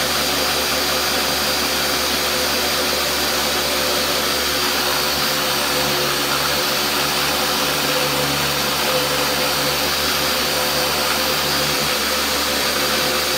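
High-powered countertop blender running steadily at full speed, grinding raw cashews and dry seasonings into a meal. There is only a small amount in the big jar, so the jar is tilted and rocked to keep the mix falling into the blade, which otherwise spins nearly empty.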